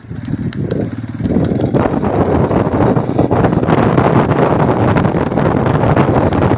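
Motorcycle engine running while the bike is ridden along a dirt road, its firing pulses plain for the first second or so. From a little under two seconds in, louder wind and road noise covers it.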